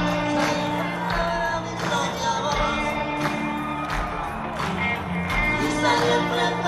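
Rock band playing live with singing over a steady drum beat, heard from within the audience in a large arena.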